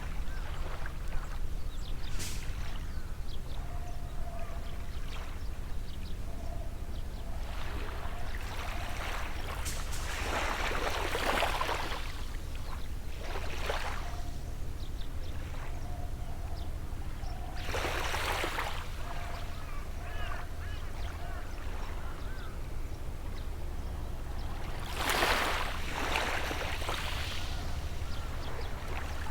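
Gentle sea waves washing onto the shore, with a swash several times, the loudest about ten and twenty-five seconds in, over a steady low rumble. A bird gives short repeated calls between the waves.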